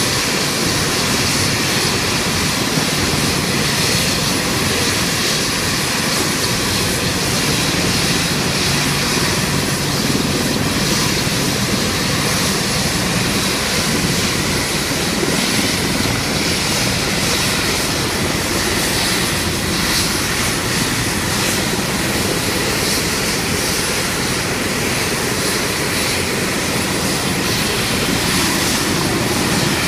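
Several AH-64 Apache helicopters running on the ground with rotors turning: the steady sound of their turboshaft engines and rotor blades, with a thin high whine held steady over it.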